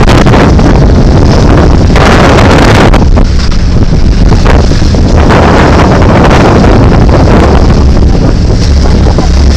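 Heavy wind buffeting the microphone on an open boat under way, over a steady low rumble, with louder surges of wind and water a couple of times.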